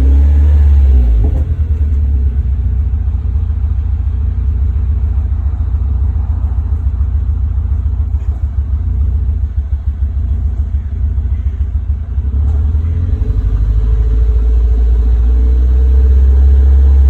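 Car engine idling roughly, its level dipping and surging unevenly, with a steadier, louder stretch near the end.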